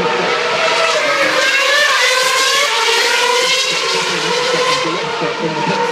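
Formula One cars running on track at high revs: several engine notes at once, rising and falling in pitch as the cars accelerate and pass.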